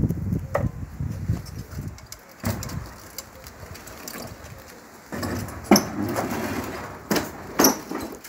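Rattling, knocking and scraping of a push lawn mower being wheeled and shifted about on concrete: a low rattle at first, a busy clatter a little after halfway, and two sharp knocks near the end.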